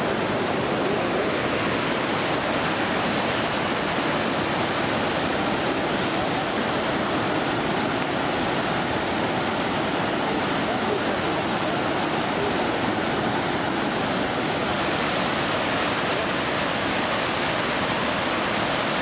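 River rapids: white water rushing steadily over rock ledges.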